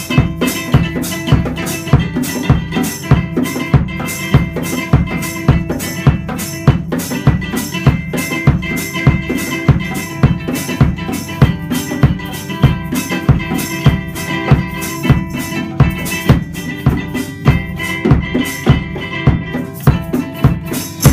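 A band playing an instrumental passage: a ukulele strumming over drums that keep a steady beat of about two hits a second.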